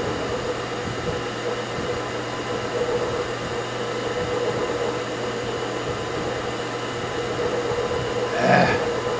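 Milling machine running steadily with a motor hum, its spindle turning a coaxial indicator to centre it on a cylinder bore. A short, louder noise comes near the end.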